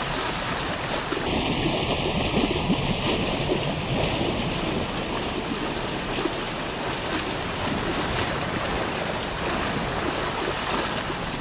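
River water rushing steadily over a low stone weir, a continuous even wash of white water.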